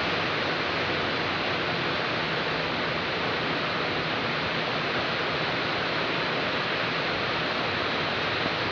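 Heavy rain falling: a steady, even hiss throughout.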